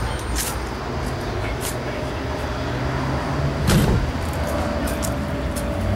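A car engine running at a steady idle, with scattered light clicks and a brief louder rush a little before two-thirds of the way through.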